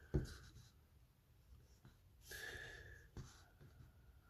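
Faint paper handling on a desk: a soft knock just after the start, then a brief rustle a little past two seconds in as the sheet is shifted.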